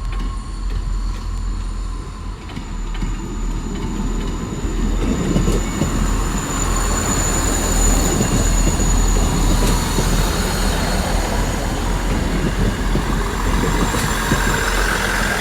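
South Western Railway Class 159 diesel multiple unit passing: diesel engines running and wheels rolling on the rails, growing louder from about three seconds in and staying loud as the carriages go by.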